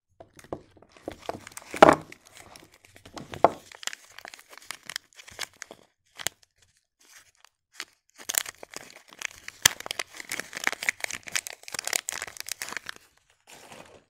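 Foil soap wrapper crinkling and tearing as it is pulled open by hand: irregular crackles and rustles, the loudest crackle about two seconds in and a dense run of crinkling in the second half.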